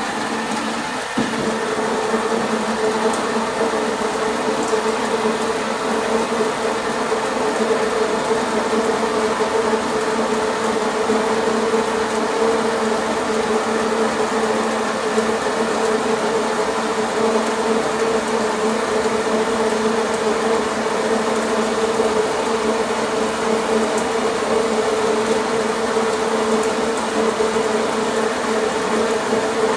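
iHOM IPB-2001E cordless portable blender running upside down through its 40-second blend cycle, its small motor and steel blades giving a steady buzz of unchanging pitch as it blends oats, berries and almond milk. It steps up slightly in loudness about a second in.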